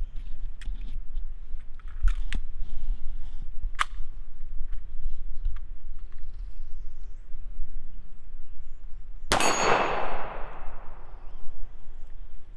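A single 9mm pistol shot from a Hi-Point C9 about three-quarters of the way through, a sharp crack with an echo that dies away over about a second. Several faint sharp clicks and pings come before it.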